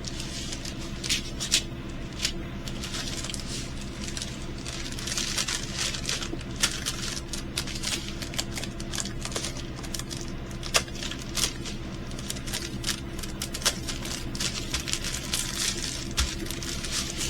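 Small plastic bags of diamond painting resin drills being handled, with scattered light clicks and crinkles throughout, over a steady low hum.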